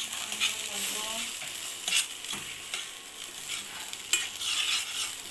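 Onions sizzling as they fry in oil in a pan, stirred with a spatula that scrapes and knocks against the pan a few times.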